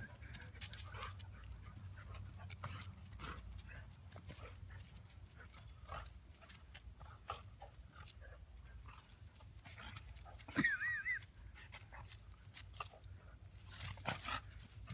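A golden retriever and a husky play-fighting: faint scuffling and breathing, with one short, wavering high whine about ten and a half seconds in.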